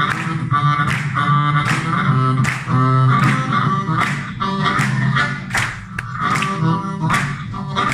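Live blues band: a harmonica played cupped against a vocal microphone takes the lead over the band, with a steady drum beat of about two strokes a second.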